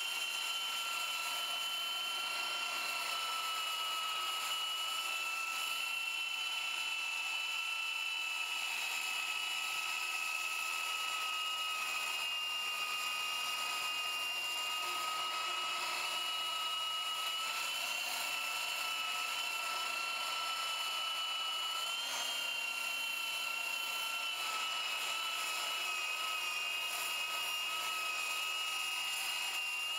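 Corded electric woodworking power tool running steadily at full speed with a high-pitched whine, its pitch lifting slightly about 22 seconds in.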